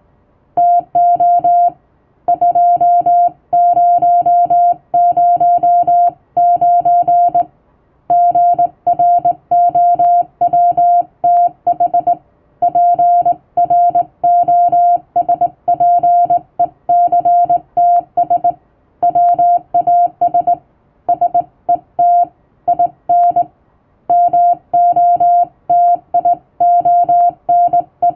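Hand-sent Morse code in English plain text: a steady mid-pitched tone keyed on and off into dots and dashes, with short gaps between letters and longer pauses between words.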